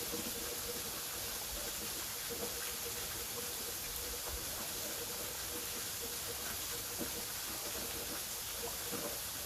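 Waterfall: a steady, even rush of falling water, brightest in the high hiss, with no change in level.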